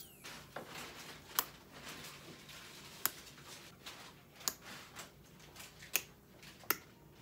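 Orthodontic pliers snapping brace brackets off the teeth: a series of sharp, short clicks, one every second or so.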